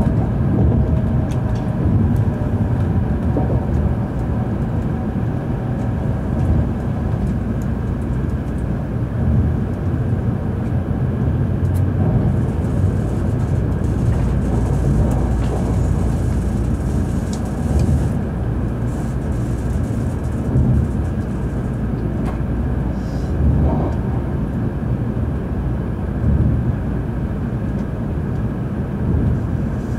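Steady running noise of an N700 series Shinkansen heard inside the passenger cabin: a continuous low rumble from the wheels and running gear, with a faint high hiss for several seconds in the middle.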